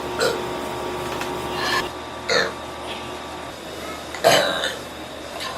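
A woman burping several times in short separate bursts. The loudest and longest burp comes about three-quarters of the way through.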